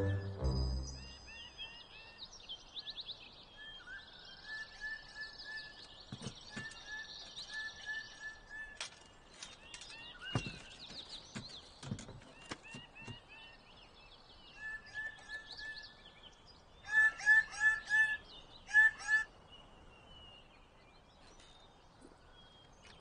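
Several birds calling and singing: series of short repeated chirps and trills throughout, with two loud bouts of rapid repeated calls about three-quarters of the way through. A few soft clicks sound in the middle.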